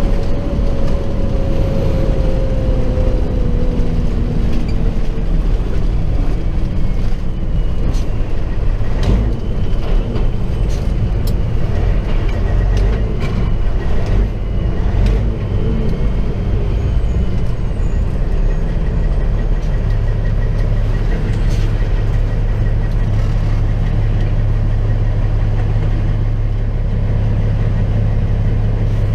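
Semi truck's diesel engine running, heard from inside the cab along with road rumble as the truck drives and turns. About two-thirds of the way in the engine note settles into a steadier drone.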